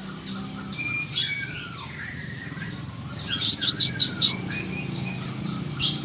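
A bird chirping and whistling in short gliding notes, with a quick run of about five sharp notes around the middle. A steady low hum runs underneath.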